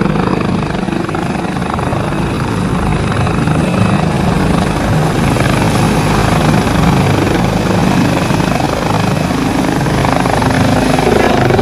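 Air ambulance helicopter lifting off and climbing away, its rotors and turbine engine running loud and steady.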